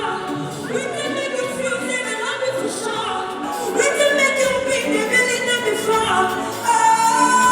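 Live concert music: a singer's drawn-out, gliding vocal lines over the band.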